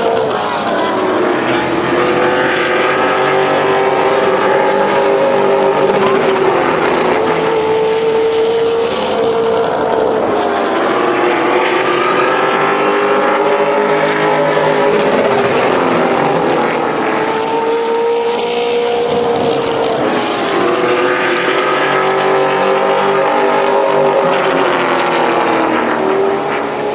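V8 engines of Pro Late Model stock cars running laps on a short oval. The pitch rises on the straights and drops into the turns, in a slow repeating cycle.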